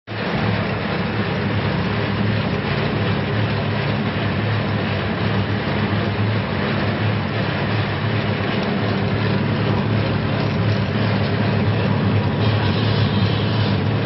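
Brush fruit washing machine running: a steady motor hum under the constant hiss and splash of water jets from its spray pipe falling on the fruit and rotating brushes. The hiss grows a little brighter near the end.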